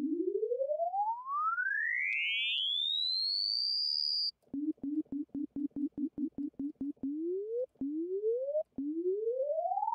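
Arturia Pigments software synthesizer playing a simple wavetable tone whose pitch glides smoothly upward as an LFO sweeps the oscillator's coarse tuning, with the detuned unison voices briefly spreading apart. The tone stops about four seconds in. A quick run of short repeated notes at a low pitch follows, then a series of rising pitch sweeps, each about a second long.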